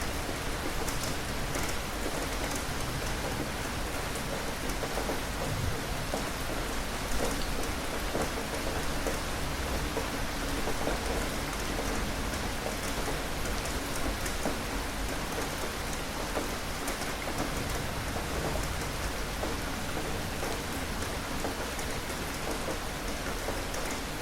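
Steady, heavy rain falling, an even hiss with individual drops ticking on a surface.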